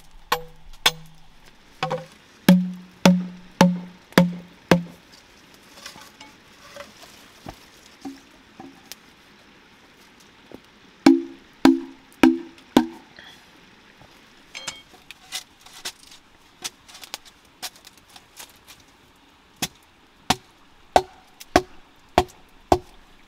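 Knife chopping wood: sharp knocks in uneven runs, several with a short hollow ring, the loudest runs a couple of seconds in and about halfway through.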